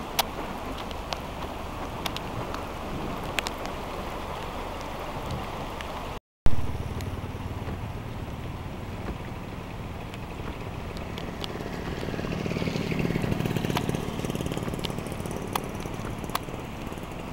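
Heavy monsoon rain with a steady hiss and scattered drops ticking, mixed with a vehicle's engine hum. There is a brief dropout and a sudden loud thump about six seconds in, and the engine sound swells for a few seconds in the second half.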